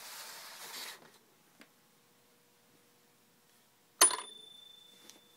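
A brief rustle of handling, then a sharp clink about four seconds in from a small hard object set down or dropped on the plastic toy playset, with a short metallic ring that fades over about a second.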